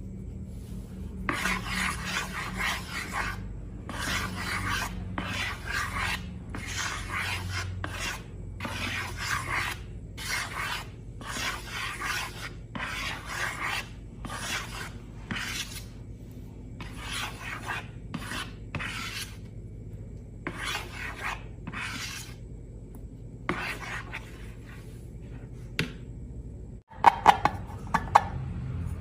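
Slime being worked by hand: a run of short rasping, rubbing strokes, about one a second, that stop a few seconds before the end. A few sharp clicks follow near the end.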